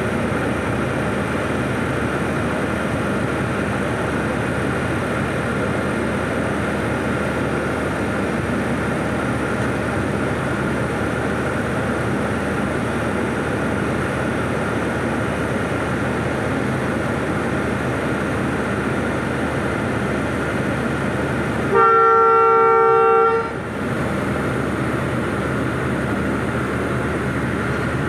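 ZCU-20 diesel-electric locomotive running steadily under a constant hiss. About three quarters of the way in, it sounds one loud multi-tone horn blast lasting about a second and a half.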